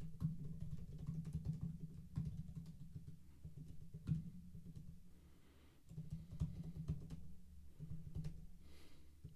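Scattered clicks and taps of typing on a computer keyboard, over a low rumble that comes and goes.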